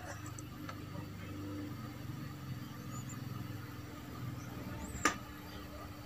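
Quiet room background with a faint steady hum, broken by one sharp click about five seconds in.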